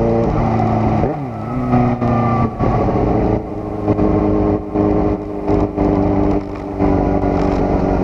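Sport motorcycle engine running at high revs under way, its pitch dipping and wavering about a second in and then holding fairly steady, with several brief drops in the sound.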